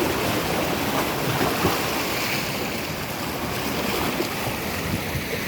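Sea surf washing on the shore, a steady rushing, with wind buffeting the microphone in low irregular gusts.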